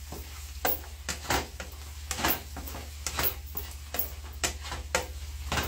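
Spatula tapping and scraping against a cooking pan in irregular clicks while eggs are stirred into a masala, over a steady low hum.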